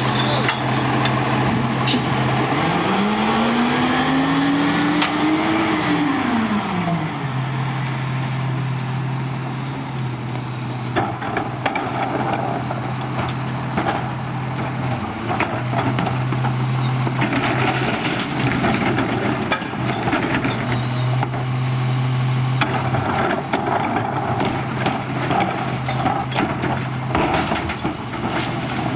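Garbage truck at work: its engine revs up and falls back once a few seconds in, over a steady low hum, with a few sharp knocks and later stretches of noise.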